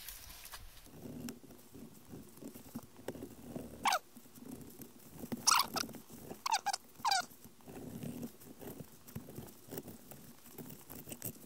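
A small knife filleting an isaki (chicken grunt) on a cutting board, giving soft uneven slicing and scraping sounds. In the middle come four short, sharp squeaks that drop steeply in pitch.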